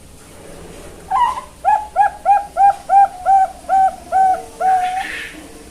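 Young Bangkok-strain zebra dove (perkutut) cooing: an opening note, then a quick run of about nine short, even coos at roughly three a second, ending in one longer drawn-out note.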